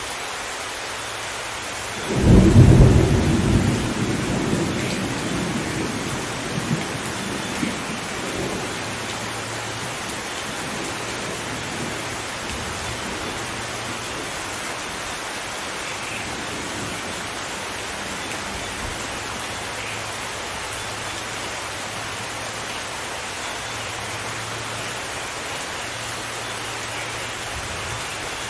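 Steady rain with a sudden clap of thunder about two seconds in, which rumbles and fades away over the next several seconds.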